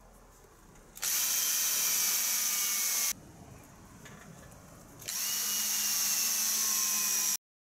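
Cordless drill boring mounting holes through a new acrylic number plate: two runs of about two seconds each, the motor's pitch sagging a little as the bit cuts. The second run cuts off suddenly.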